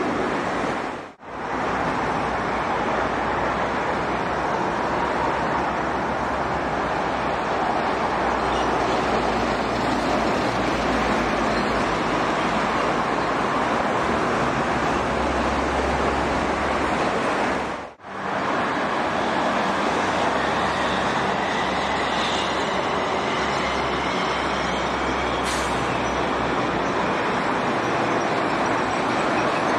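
Steady, dense highway traffic noise from trucks and cars passing at speed on a multi-lane toll road, with a faint rising whine from a passing vehicle about two-thirds of the way through. The sound drops out briefly twice, about a second in and again about eighteen seconds in.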